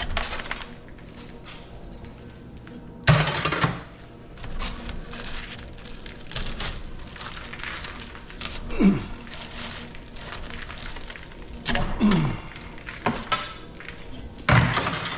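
Metal parts of an air-conditioning unit clanking and crashing as it is dismantled for scrap: several sharp hits, the loudest about three seconds in, with a few short squeals that fall in pitch.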